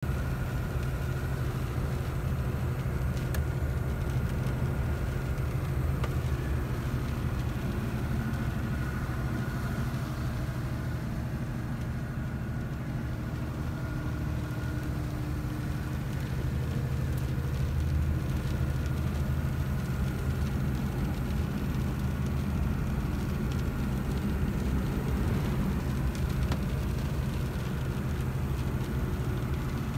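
Iveco Stralis 450 truck's six-cylinder diesel engine pulling steadily at motorway cruising speed, heard inside the cab as an even, low drone.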